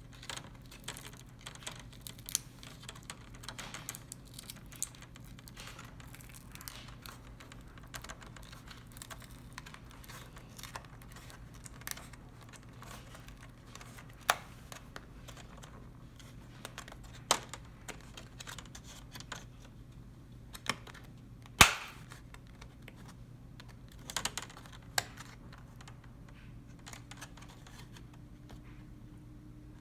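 Scattered small plastic clicks and snaps as an HP laptop's plastic screen bezel is pried and lifted off, its tiny retaining tabs popping loose, with one sharper snap about two-thirds of the way through.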